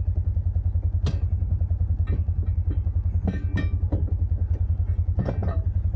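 Off-road vehicle engine running at low speed with a steady low pulsing, with occasional knocks and rattles as the vehicle works through snow.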